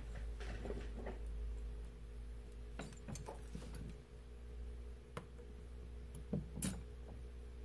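Faint, scattered small clicks and taps of hand tools working on a phone's circuit board, with a sharper pair of ticks about six and a half seconds in, over a steady electrical hum.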